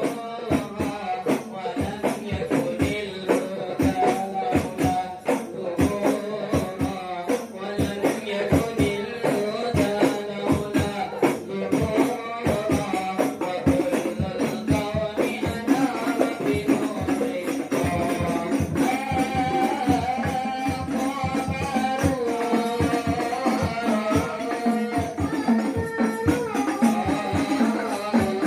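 A hadrah ensemble playing: rebana frame drums beat a fast, dense rhythm under voices singing a melody.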